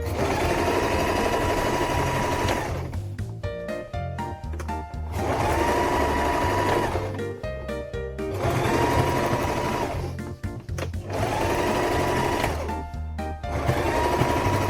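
Electric home sewing machine stitching fabric in about five runs of two to three seconds each, with short pauses between them. Background music plays throughout.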